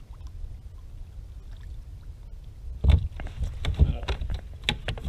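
Knocks and clatter on a kayak over a low steady rumble. About three seconds in, a loud, irregular string of sharp knocks and clicks begins.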